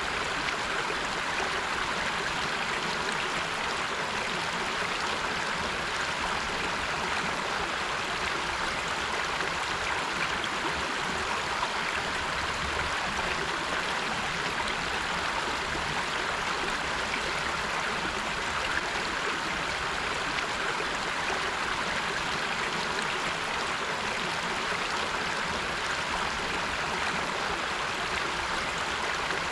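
River water flowing steadily: a constant, even rush with no breaks or changes.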